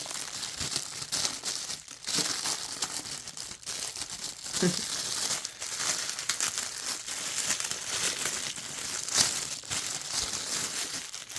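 Packaging crinkling and rustling steadily as it is handled and opened, full of small crackles, the sound of the included hair brush being unwrapped.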